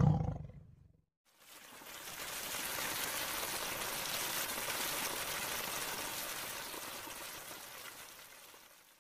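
Waterfall: water pouring steadily down into a pool, an even rushing that fades in after about a second and fades out near the end.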